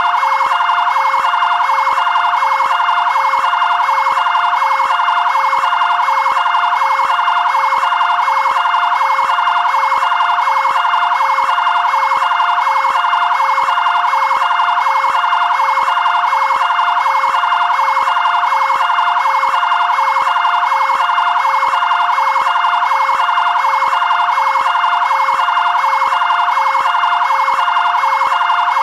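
Fire brigade area-command vehicle's two-tone siren, switching steadily back and forth between a lower and a higher pitch at an even, unchanging loudness.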